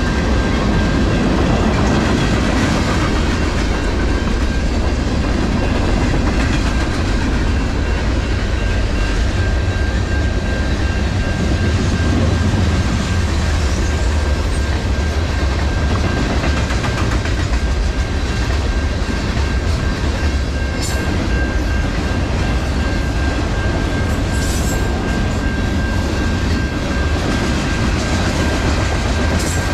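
Freight train cars rolling past steadily, steel wheels clacking over the rails with a low rumble.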